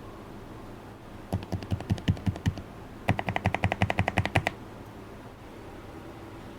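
Typing on a low-profile keyboard: a run of keystrokes lasting about a second, then after a short pause a faster, clickier run of about a second and a half.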